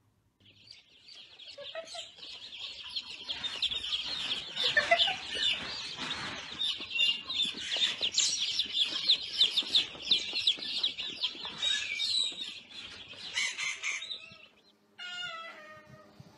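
A crate full of baby chicks peeping non-stop, dozens of high-pitched cheeps overlapping into a constant chorus. It swells in over the first couple of seconds and cuts off suddenly near the end.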